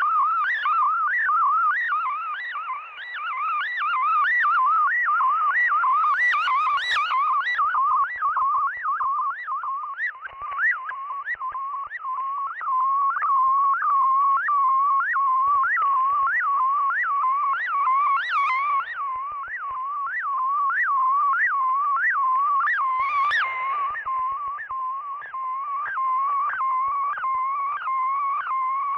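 Shortwave broadcast audio from a software-defined radio receiver: a warbling, music-like tone swooping up and down about twice a second, cut off above about 3 kHz, with brief bursts of hiss.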